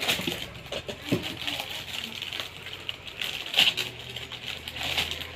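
Rustling and scattered light clicks and knocks of objects being handled, with a faint low hum in the second half.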